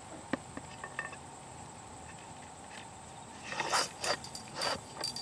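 A few short scraping, rustling sounds about three and a half seconds in, as the sleeve is slid down over the fibreglass line post, with a click or two before; crickets chirp steadily behind.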